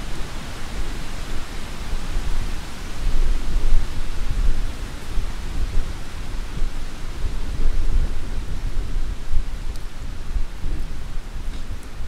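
Thunder rumbling low under steady heavy rain. The rumble swells about three to five seconds in and again past the middle.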